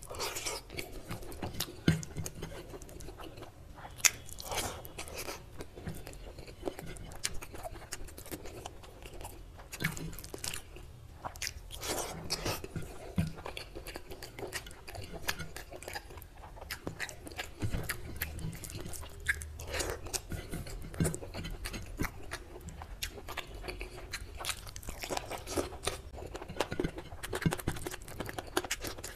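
Close-miked chewing and biting of food eaten by hand (fried brinjal, rice and mutton curry), with irregular crunches and mouth clicks, and fingers scraping across a ceramic plate.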